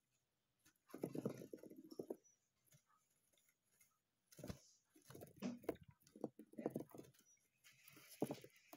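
Faint, irregular scrabbling and rustling from a pet hamster moving about on a hard plastic floor, in short clusters with quiet gaps between.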